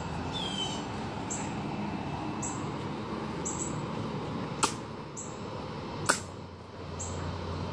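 Two sharp clicks about a second and a half apart as a cutting tool is worked on a hanging, skinned rabbit carcass, over steady outdoor background noise. A short falling bird chirp comes about half a second in, and faint high-pitched pulses repeat about once a second.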